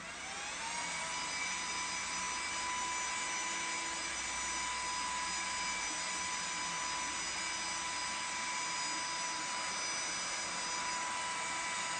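ELUXGO ALT1019 cordless stick vacuum's motor spinning up over about the first second, then running steady with a high whine and rushing air.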